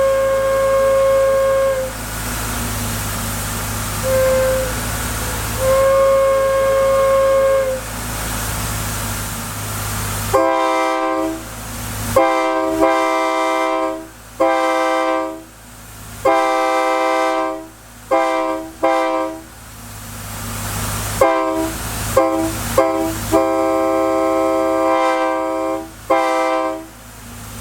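Locomotive air horns blown on display: first a single-note horn or whistle sounding a long note, a short one and another long one. Then, from about ten seconds in, a multi-chime air horn sounding its chord in a dozen or so blasts, some short and clipped, some held two or three seconds.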